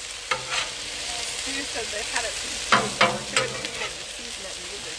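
Shredded hash browns and cheese sizzling on a Blackstone griddle's steel flat top while a metal spatula scrapes under the mixture and folds it over. The spatula's scrapes come as a few sharp strokes, a pair just after the start and a cluster around three seconds in, over the steady sizzle.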